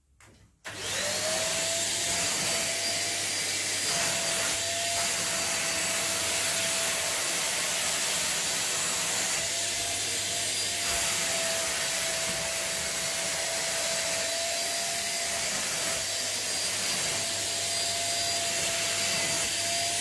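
Deerma DX700 corded stick vacuum cleaner switched on about a second in, its motor quickly spinning up and then running steadily with a high whine while the nozzle is pushed over a mattress.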